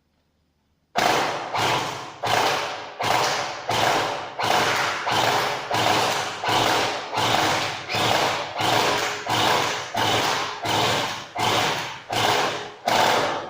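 A P90-style gel blaster converted to an AEG firing single shots at an even pace, about nineteen shots at roughly one and a half a second. Each shot is a sharp crack that fades with a short ring.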